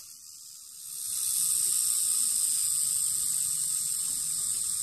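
Quantum Escalade baitcasting reel's spool spinning in free-spool mode on new Boca bearings: a steady, high whir that builds about a second in and then holds, easing off only slightly.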